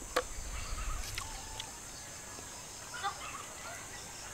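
Quiet rural outdoor ambience: a steady high-pitched insect drone, with a few faint clucks from chickens and one sharp click about a quarter-second in.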